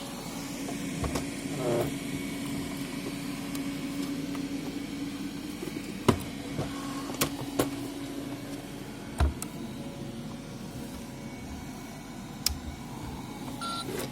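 Aldi Easy Home robot vacuum cleaner running with a steady motor hum, broken by a handful of sharp knocks.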